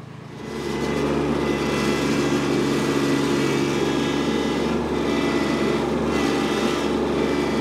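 Kubota B2601 compact tractor's three-cylinder diesel engine running steadily while the front loader bucket is worked against a tree stump. The engine comes in about half a second in and holds at an even pitch.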